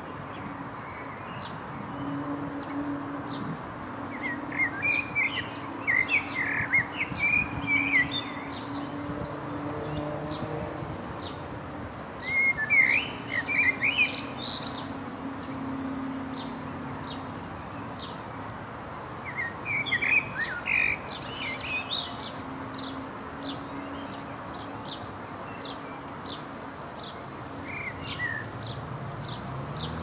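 Male common blackbird singing: three long, fluty, warbled phrases roughly seven to eight seconds apart and a short one near the end, with thin high chirps throughout and a steady low hum underneath.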